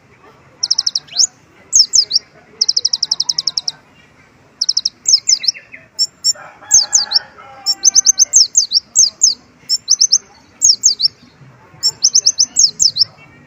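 Kolibri ninja sunbird singing hard in rapid, high-pitched bursts of trills and quick falling notes, its song filled with phrases copied from white-eyes (pleci). A lower, rougher sound cuts in briefly about six seconds in.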